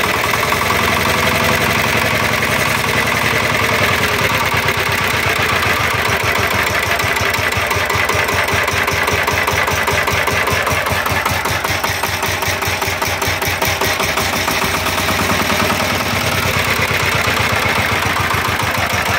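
Single-cylinder diesel engine of a Kentavr 1010DE walk-behind tractor idling steadily, with an even diesel clatter.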